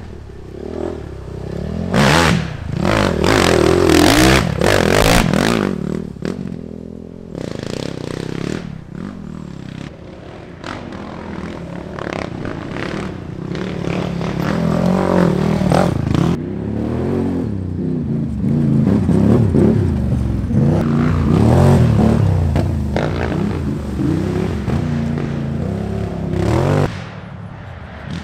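Sport ATV engines revving hard as quads race along a dirt trail, the engine pitch rising and falling with the throttle as they pass one after another. The loudest passes come a few seconds in and again around the middle.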